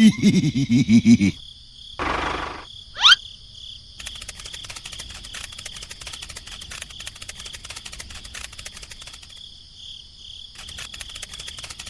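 A few short loud pulsing sounds and a quick rising whistle. Then, from about four seconds in, a steady high chirring of insects with dense fine ticks.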